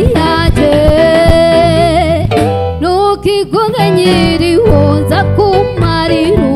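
A woman singing lead over a live band of electric bass, drums and keyboard. She holds a long note about a second in, then sings quick runs that slide up and down in pitch.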